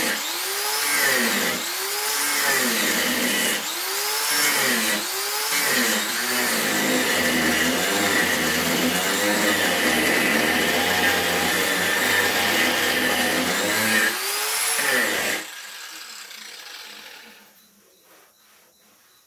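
Corded electric angle grinder with an abrasive disc sanding a rough wooden plank. Its whine dips and recovers about once a second as the disc is pressed into the wood, then runs steadier. About 15 seconds in it is switched off and winds down.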